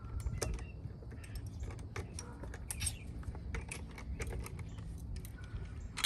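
Irregular light metallic clicks and taps of a socket wrench on lug nuts as the nuts are run onto a trailer wheel's studs and seated before tightening.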